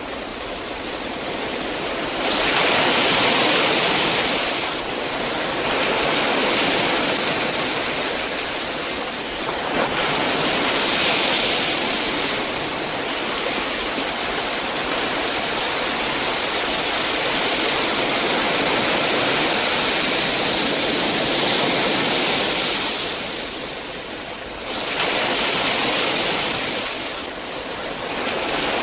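A continuous rushing noise, swelling and easing every few seconds, with no music or speech.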